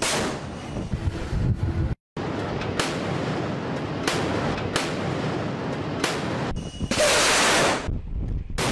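Warship's twin-barrel naval gun firing: several sharp reports at uneven intervals, with a longer loud blast about seven seconds in, over steady wind and sea noise. The sound cuts out for an instant about two seconds in.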